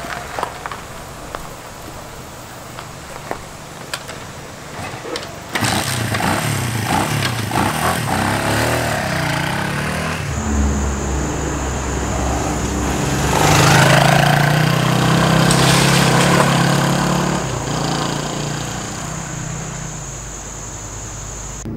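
Red Honda motorcycle's engine starting with a sudden burst about five and a half seconds in, after a few clicks, then revving up and down as it rides off, loudest in the middle stretch before easing.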